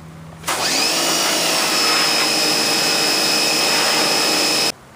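Electric pressure washer running while spraying water into a car's engine bay. The motor starts about half a second in with a rising whine, runs steadily, and cuts off suddenly near the end as the trigger is released.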